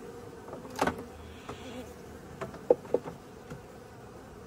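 Honeybees buzzing at their hive in a steady hum, with a few sharp knocks and clicks, the loudest a pair of quick clicks a little past the middle.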